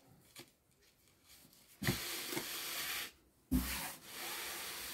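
Hand rubbing and smoothing cotton-linen suit fabric: two stretches of dry rustling, each lasting about a second, the first about two seconds in and the second a second and a half later, each starting with a soft bump.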